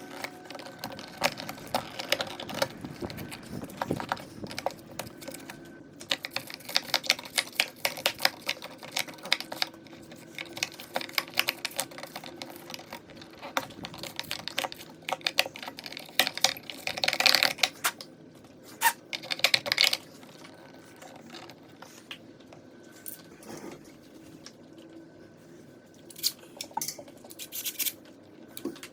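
Irregular rapid clicks, taps and scrapes of hands and a tool working on a wall light switch and its box while the old switch is removed. The clicking comes in busy spells and thins out over the last several seconds.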